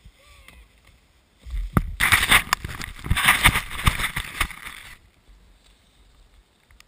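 Plastic sledge scraping and hissing through snow right up to the camera, with several sharp knocks. It starts about a second and a half in and stops suddenly about five seconds in.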